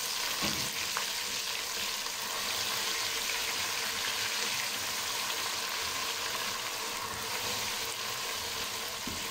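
Ginger-garlic paste and browned onions sizzling steadily in hot ghee in a pot, stirred with a silicone spatula; the paste is being fried to cook out the raw garlic taste.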